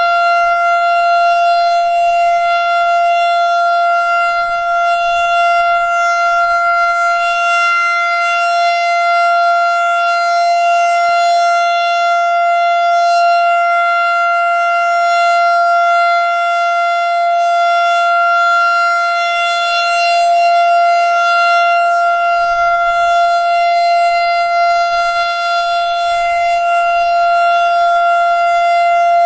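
Federal Signal STH-10 electromechanical outdoor warning siren holding a steady Alert tone, a single unwavering pitch with gentle swells in loudness. It is sounding for a routine monthly siren test.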